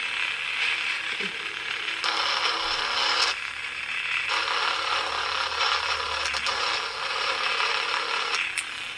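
A small bass speaker driven by a lightsaber sound board gives out a rough, distorted noise that shifts abruptly in tone every second or two. It comes from a test of running the speaker off the board, a result that sounds really bad.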